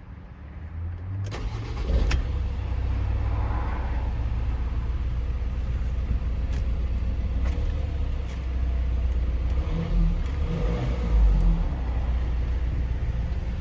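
Ford Transit van's engine coming up to a steady run about two seconds in, with a couple of clicks as it starts, then running evenly.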